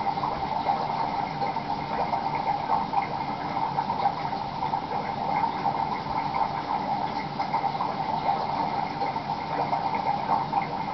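Aquarium water bubbling steadily, a constant fluttering burble of air bubbles rising through the tank.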